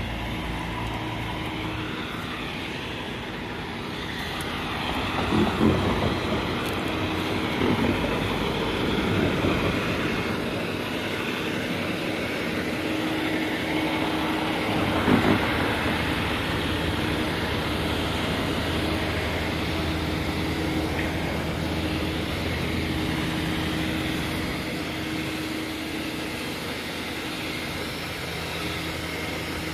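Diesel work-truck engines idling steadily, with a few brief louder swells in the first half.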